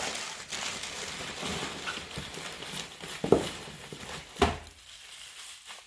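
Paper wrapping rustling and crinkling as hands dig through a cardboard box of wrapped toys, with two hard knocks of objects bumping in the box, the first the louder.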